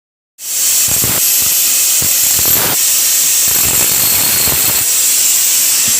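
Exothermic welding charge burning in its mold: a loud, steady hissing fizz with scattered low crackles and pops as the reaction sputters.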